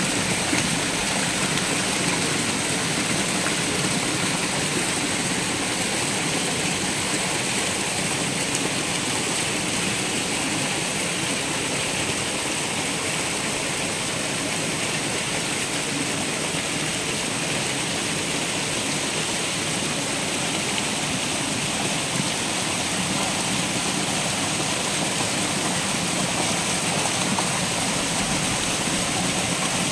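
Steady splashing and churning of water from a dense crowd of red tilapia thrashing at the surface, the mass feeding rush of farmed fish.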